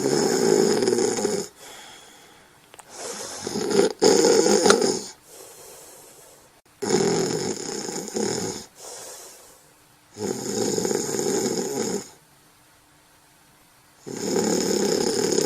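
A sleeper snoring in slow, regular breaths. There are about five long snores, each lasting around two seconds, about three and a half seconds apart. The first is already under way at the start and the last runs on past the end.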